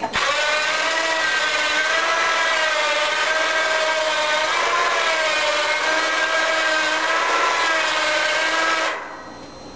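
Winch motor on a homemade forklift frame whining steadily as it winds in, lifting a water tote. The pitch wavers slightly, and the motor stops about nine seconds in.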